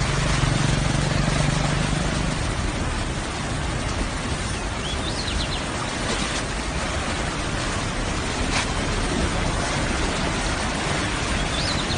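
Rushing floodwater: a steady, even wash of water noise, with a low hum in the first two seconds.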